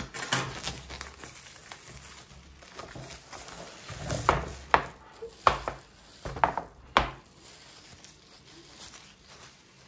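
Plastic shrink-wrap being peeled and crumpled off a metal pencil tin: crinkling throughout, with a run of sharp crackles between about four and seven seconds in, then quieter rustling.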